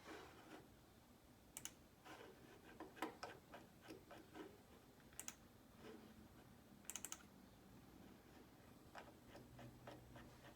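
Faint, irregular clicks and taps of typing on a computer keyboard, in near silence.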